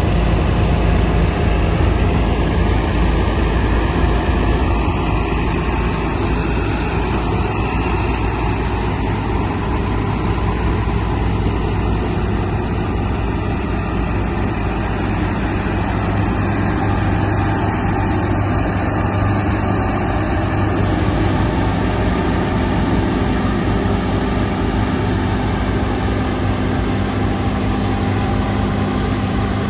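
Diesel engine of a large John Deere harvest machine, tractor or combine, running steadily at a constant speed.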